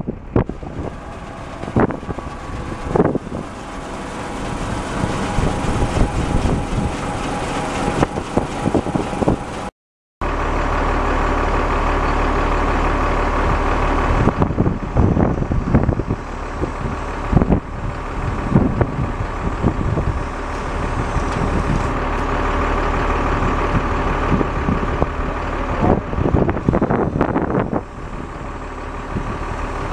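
The truck's Cummins 5.9 L six-cylinder turbo diesel runs steadily, driving the hydraulic auger of the Willmar fertilizer tender bed, with a few knocks now and then. The sound cuts out for a moment about ten seconds in, then the engine continues with a deeper rumble.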